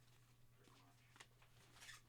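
Near silence: faint room tone with a steady low hum and a couple of faint ticks.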